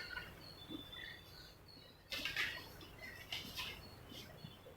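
Faint bird calls: scattered short high chirps, with two louder rasping calls about two seconds in and again a little later.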